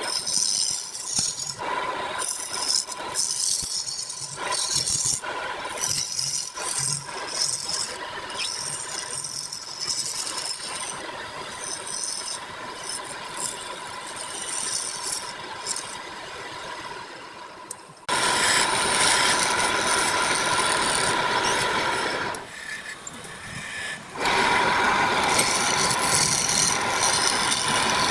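Wood lathe running with a turning tool cutting the spinning wood, over a steady motor whine. At first the cut comes as irregular rattling scrapes; about two-thirds in it becomes a louder, steady cutting noise, broken by a short lull.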